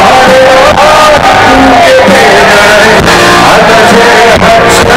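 Live rock band playing with a male lead singer singing into a microphone, very loud.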